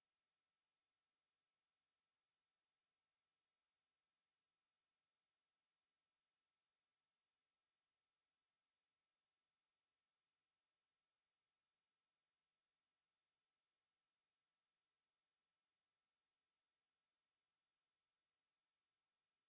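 A pure 6173 Hz sine-wave test tone, a single high-pitched steady whistle held at constant level, used to check speakers or headphones.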